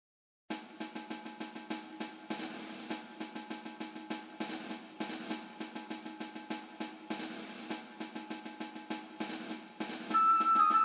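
Background music of quick, repeated drum strokes over a held low note. About a second before the end, a tinkling melody comes in.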